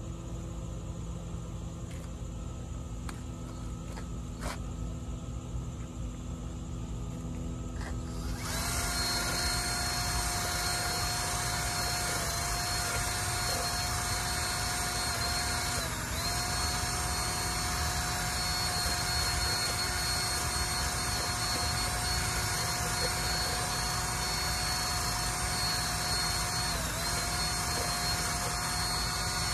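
Cordless drill with a paddle mixer stirring two-part expanding foam in a plastic cup. It starts about eight seconds in and runs at a steady speed with a high whine, dipping briefly twice. Before it starts there are a few faint clicks.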